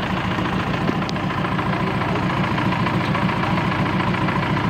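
JCB 3DX backhoe loader's diesel engine idling steadily.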